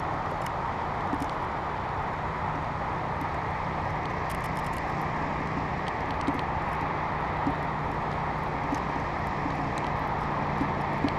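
Steady wind rushing over a GoPro camera held aloft by helium balloons, dulled by its housing, with a low steady hum beneath and scattered light clicks.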